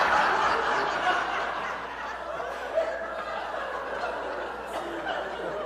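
Audience laughing, loudest at the start and slowly dying down.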